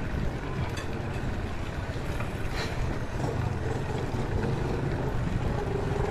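Steady wind rush on the handlebar camera's microphone with the tyres of a mountain bike rolling on concrete, and a faint click about two and a half seconds in.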